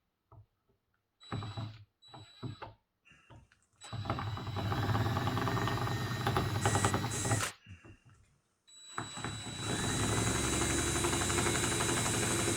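Power drill drilling out a seized forend cap screw on a Winchester 44-40 rifle. A few light handling clicks, then about four seconds in the drill spins up with a rising whine and runs under load, stops briefly, and starts again for the rest.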